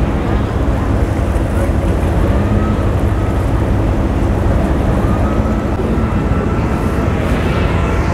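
Steady low rumble of a boat engine running, mixed with wind and water noise.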